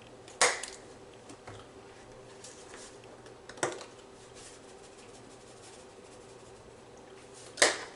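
Plastic spice shaker bottles handled and set down on a wooden cutting board: three sharp clacks a few seconds apart, over a faint steady hum.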